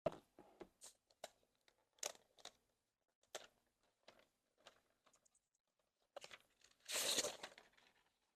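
Product box packaging being handled and torn open: short rustles and scrapes, then a longer tearing sound about seven seconds in.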